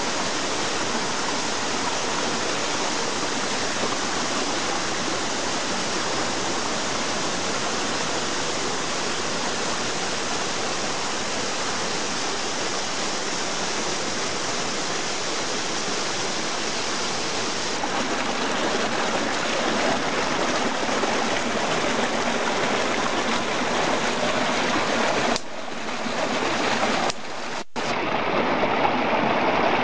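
Stream rushing over rocks and small waterfalls, a steady splashing rush of water. Its character shifts abruptly a few times in the second half.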